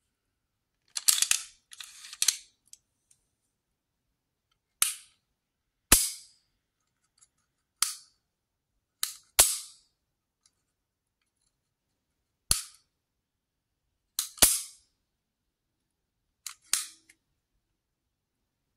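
Beretta PX4 Compact Carry pistol being dry-fired: sharp metallic clicks of the hammer falling, single or in quick pairs, one to three seconds apart. About a second in there is a rapid cluster of clicks and metal sliding as the slide is worked.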